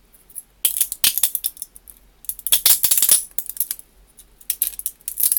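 3D-printed plastic support material being pulled off a print in ribbons: three bouts of crackling, snapping clicks, around one second, three seconds and near the end.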